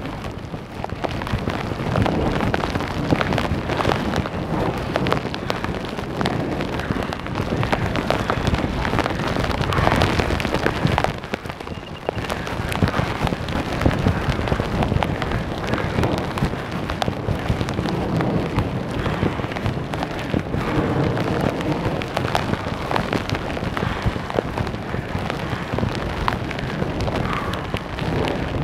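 Heavy rain and strong gusting wind in a storm: a dense, steady rush with rain spattering throughout and the wind surging and easing, dipping briefly about eleven seconds in.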